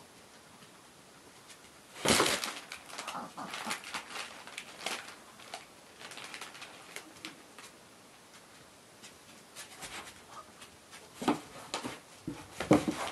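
Small dogs and a kitten scuffling at play around a fabric play tunnel and a cardboard box: a burst of rustling, scratching and clicking about two seconds in that thins out over the next few seconds, and another burst near the end.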